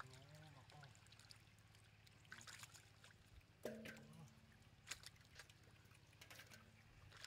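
Faint splashing and trickling of muddy water as hands work in a shallow canal, with a few brief louder splashes over a steady low hum.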